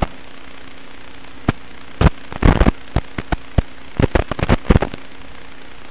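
Steady hiss of an analog FPV video receiver's empty audio channel, with a faint hum. From about a second and a half in it is broken by clusters of sharp crackles and pops as the quad's video signal breaks up into static.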